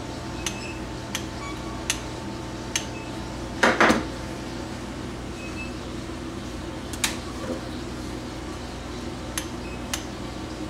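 Small metal clicks and clinks of a spark plug and a hand gapping tool, spaced about a second apart, as the plug's electrode gap is checked and set. There is a louder clatter a little under four seconds in.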